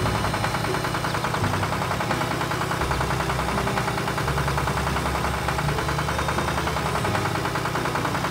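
Heavy machine engine sound effect running steadily with a rapid, even knocking pulse.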